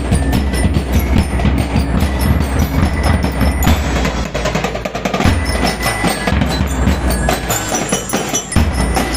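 Drum and lyre marching band playing: bell lyres ring out a melody over dense snare and bass drum beats.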